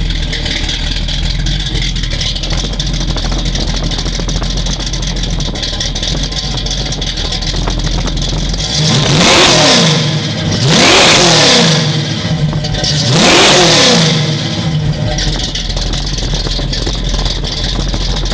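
1968 Pontiac Firebird's 406 V8 idling through Flowmaster mufflers, then revved three times about halfway through, each rev winding up quickly and falling straight back to idle.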